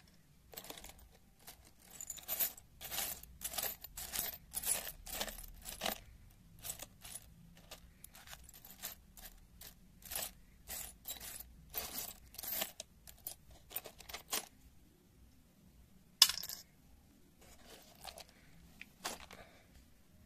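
Loose metal screws and bolts clinking and rattling in a plastic tub as a hand rummages through them, a busy run of clicks that thins out, with one sharper clink about sixteen seconds in and a few more near the end.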